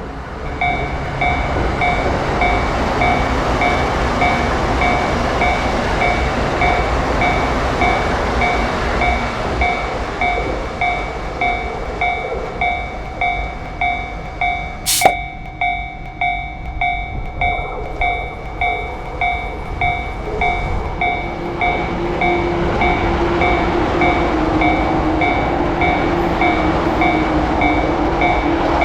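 Japanese railroad crossing bell ringing over and over, roughly one and a half rings a second, while a train passes with a steady rumble. One sharp click comes about halfway through, and a low hum joins in later on.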